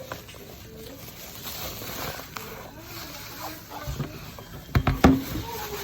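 Handling noise from unpacking a mini fridge: rustling and small clicks, then a few heavy knocks about four to five seconds in, as the fridge is moved and set down.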